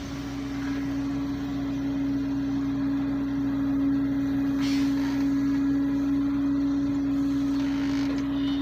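Volvo EC210D hydraulic excavator running, with a steady hum, a little louder in the middle, as it works. A brief knock about halfway through.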